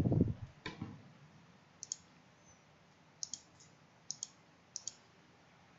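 Computer mouse double-clicked four times, each a quick pair of sharp clicks, spread over a few seconds.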